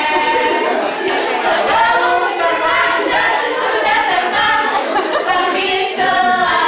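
A small group of students singing a group yell-song together in unison, unaccompanied, the voices carrying on without a break.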